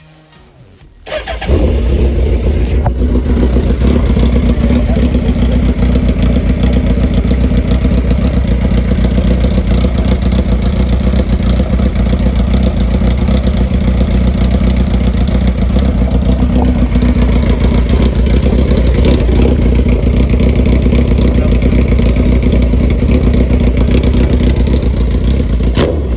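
Gen 1 Suzuki Hayabusa's inline-four engine, breathing through an Austin Racing stubby exhaust can, fires up about a second in and then idles loud and steady.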